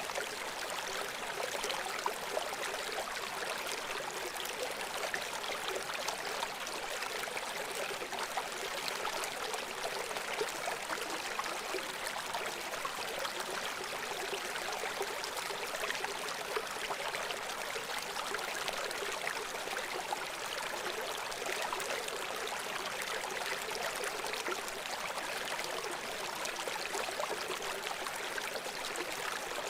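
A river flowing over stones, a steady rushing and babbling with many small splashes and gurgles.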